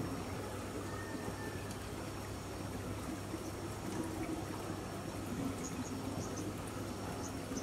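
Steady trickling and running of pool water, with a faint high insect drone and a few short high chirps from birds or insects in the second half.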